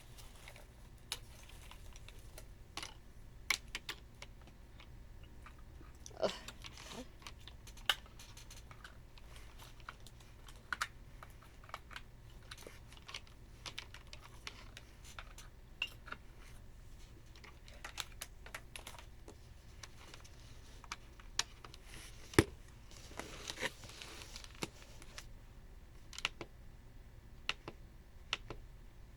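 Scattered, irregular key presses and clicks on a Furycube IP98 wired membrane keyboard, a few at a time with gaps between. A brief rustle of handling comes about six seconds in and again around 23 seconds.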